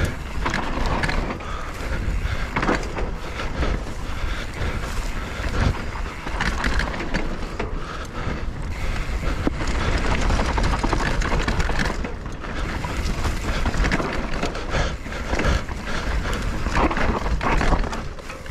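Mountain bike running down a rough dirt trail: wind rushing over the camera microphone, tyres crunching on dirt, and frequent rattles and knocks of the bike over bumps.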